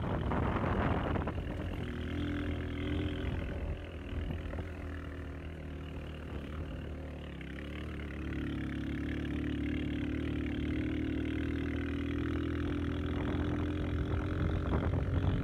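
A vehicle engine running steadily, its note changing about eight seconds in. There is wind noise on the microphone in the first second and near the end.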